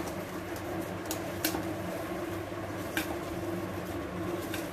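Hands mixing and kneading grated boiled potato and paneer in a steel bowl, with a few sharp clicks as the hand knocks against the bowl, over a steady background hum.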